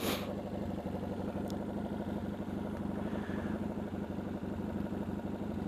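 Yamaha XS650 air-cooled parallel-twin engine idling steadily through cocktail-shaker exhaust pipes. The carburettor air screws are not yet set, and the owner hears it popping now and then, out of sync.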